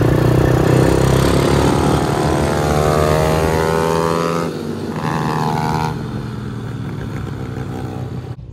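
Dirt bike engine running as the bike is ridden, its pitch falling over the first few seconds, under heavy wind rush on the microphone. The sound drops in level about halfway through.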